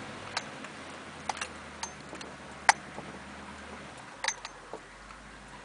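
Cab of a lifted 1991 GMC diesel Suburban crawling along a rutted trail: low steady engine hum that drops in pitch about four seconds in, with scattered sharp clicks and knocks, the loudest a little under three seconds in.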